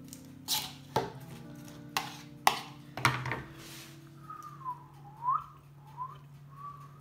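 A fork knocking and scraping through salad in a plastic bowl as it is tossed: several sharp clicks and short rustles over the first three and a half seconds. Background music with held chords runs underneath, with a gliding whistled tune in the second half.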